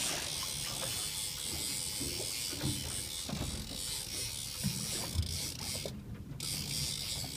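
Steady rush of wind and sea water on a moving sport-fishing boat, over a low rumble from the boat's engine, with a few soft thumps.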